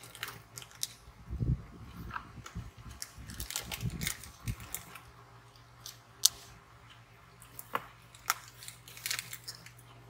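Handling noise of crochet finishing work on a wallet with a metal frame clasp: scattered small clicks and taps, with a sharper click about six seconds in, and a few low bumps in the first half.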